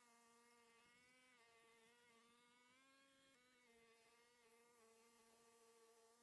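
Near silence, with a faint buzzing hum whose pitch shifts slightly up and down every second or two.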